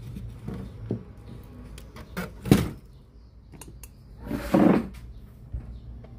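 Handling noises from work on a cassette radio: scattered light clicks, then a sharp knock about two and a half seconds in and a half-second scrape or rustle near the middle of the second half.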